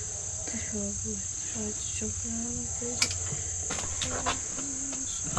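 Steady high-pitched insect chorus, with short low pitched notes and a few sharp clicks, the loudest about three seconds in.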